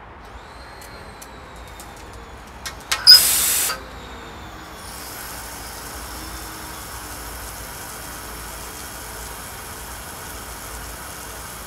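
Hydraulic pressure relief valve on a water-filled test tank popping open about three seconds in with a short, loud hiss, then venting a steady spray of water from its outlet. The valve is set to 60 bar and is relieving the pressure washer's excess pressure.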